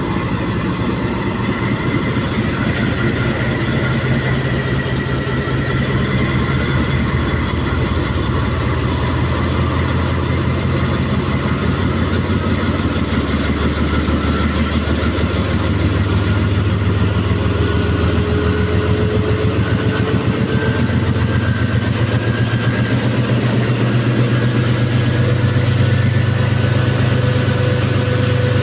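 Pakistan Railways GEU-20 (GE U20C) diesel-electric locomotive's twelve-cylinder diesel engine running, heard close beside the long hood. A whine rises slowly in pitch over the last third, and the engine gets a little louder toward the end.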